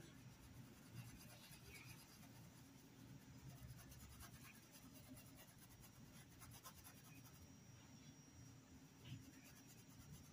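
Faint, soft strokes of a paintbrush brushing fabric paint onto a dish towel, most of them in the middle, over a low steady room hum.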